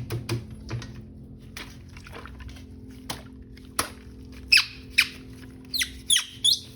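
A plastic toy being handled: scattered light clicks and knocks, then a run of short, high squeaks that fall quickly in pitch.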